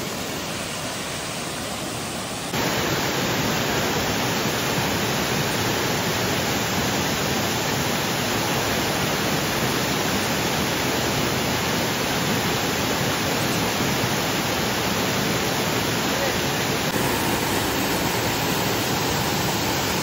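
Steady rush of a mountain waterfall's water falling from high up, growing louder about two and a half seconds in.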